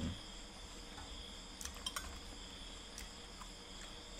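Steady, high-pitched chorus of night insects, with a few faint clicks about halfway through.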